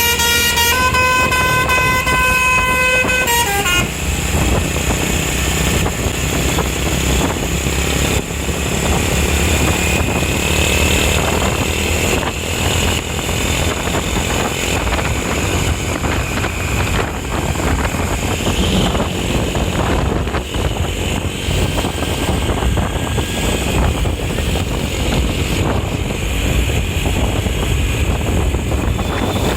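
Telolet Basuri musical horn on an Eka Persada bus: a short note, then a lower note held about three seconds before it cuts off. Steady road-traffic noise of engines and passing vehicles follows.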